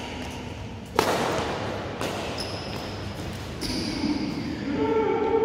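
A badminton racket striking a shuttlecock with one sharp smack about a second in, echoing in the large hall, followed by fainter knocks and brief high shoe squeaks on the court floor. A voice comes in near the end.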